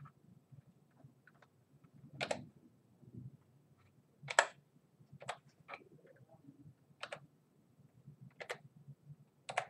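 Slow typing on a computer keyboard: single keystrokes spaced about a second apart, the loudest about four seconds in.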